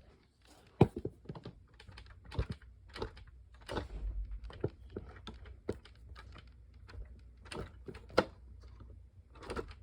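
Irregular light clicks and taps, about two a second and uneven, from a small battery-powered plastic washing machine being handled and felt over.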